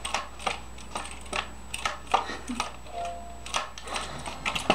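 Color guard rifle being spun and caught in a double-time drill: hands slap and grip the rifle in a steady rhythm of about two and a half sharp clicks a second.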